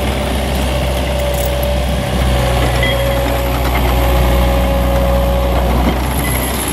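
Takeuchi TL120 compact track loader's diesel engine running steadily as the machine drives with a loaded bucket, a deep even hum with a steady whine over it that fades near the end.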